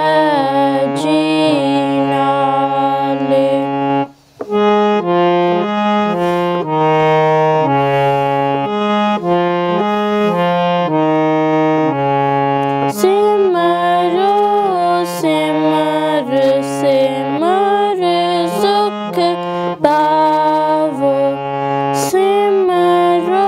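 Background music: a melody over a stepping bass line, briefly cutting out about four seconds in.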